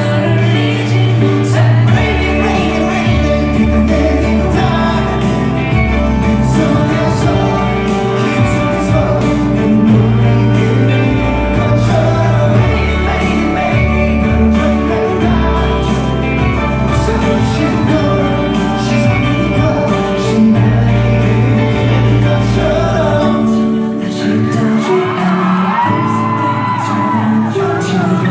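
Live K-pop song in a large hall, recorded from the audience: male voices singing over a band track with a heavy bass line, with fans shouting. The bass drops out about four seconds before the end, leaving the singing over lighter accompaniment.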